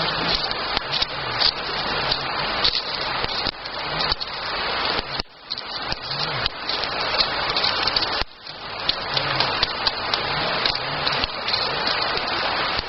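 Wood campfire burning: a steady hiss full of quick crackles and pops, with two brief dips in level about five and eight seconds in.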